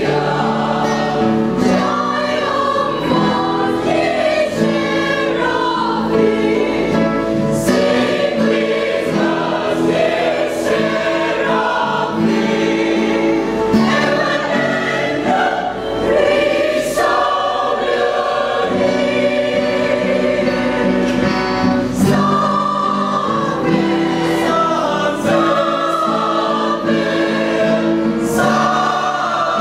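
Mixed choir of men's and women's voices singing a Marian hymn in Vietnamese, in sustained harmony, with acoustic guitar accompaniment.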